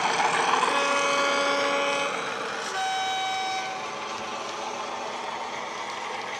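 Sound of a Class 37 diesel locomotive played by an ESU LokSound HiFi DCC sound decoder through the model's speaker: the English Electric engine running under a two-tone horn, a lower note held for over a second, then a higher note for about a second. The engine sound then fades as the model runs away.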